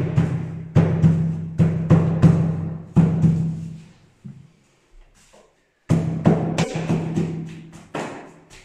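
Mallet blows driving a wooden door casing into the groove of a wooden door frame: a run of hollow, resonant thuds about two a second, breaking off for about two seconds midway and then starting again.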